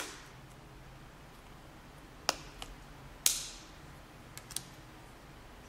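Plastic snaps and clicks as a SIM card is pressed out of its plastic carrier card: a sharp snap at the start, a click and a smaller one about two seconds in, the loudest snap about a second later, then two faint ticks.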